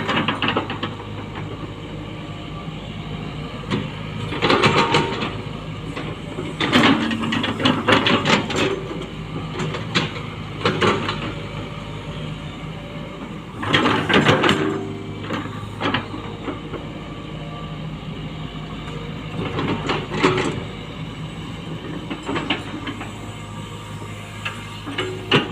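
Hitachi Zaxis 120 excavator's diesel engine running steadily under work, with louder bursts of clanking and scraping every few seconds.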